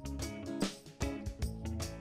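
Background music with held notes and a steady beat.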